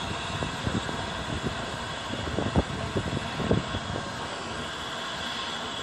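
LNER A3 steam locomotive Flying Scotsman standing in steam, giving a steady hiss and rumble, with a handful of irregular low knocks about halfway through.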